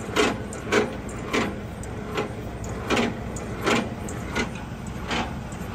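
Semi-trailer landing gear being cranked down by hand: a regular clunk about every two-thirds of a second as the crank handle turns the gearbox. Under it runs the steady hum of an idling truck engine.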